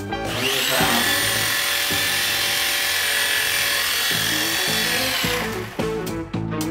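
Small electric motors of a toy coaxial RC helicopter spinning its twin rotors: a steady high whine with rotor whoosh. It starts just after the beginning and cuts out about five and a half seconds in.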